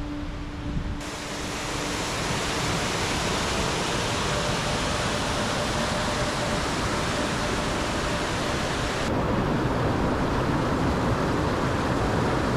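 Whitewater and waterfalls on Raymondskill Creek: a steady rushing hiss, brighter from about a second in and slightly duller near the end.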